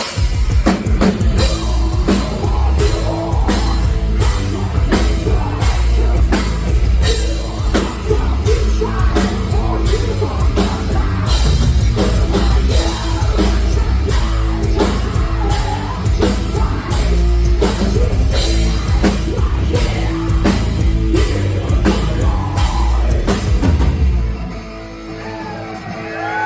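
Live heavy metal played loud, with heavy distorted low end, pounding drums and singing, heard through an audience recording. About 24 seconds in, the full band drops out to a quieter, sparser passage.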